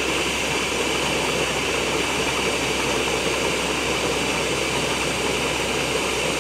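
Countertop blender motor running steadily at speed, whirring through a full jug of liquid ice-cream base of milk, condensed milk and ants.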